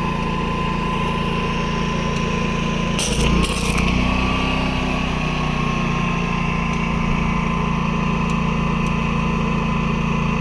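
Predator 11,500-watt inverter generator running steadily with a constant whine. About three seconds in there is a brief crackle, and the engine note lifts as it takes on a load, then settles back to a steady run.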